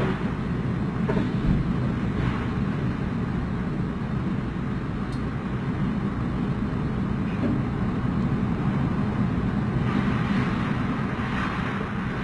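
Strong typhoon wind blowing steadily, with heavy low wind noise on the phone's microphone.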